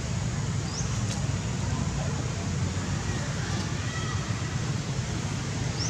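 Steady outdoor background rumble and hiss, with two brief rising high chirps, one about a second in and one near the end.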